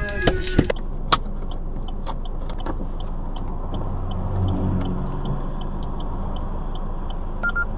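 Car cabin heard through a dashcam: a steady low engine and traffic hum with a light, even ticking about three times a second, and a brief low swell about halfway through.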